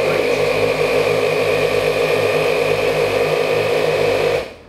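Twin ARB 12-volt air compressors running steadily, filling a shared air tank. They cut out abruptly near the end as the pressure switches reach their 150 PSI cut-off.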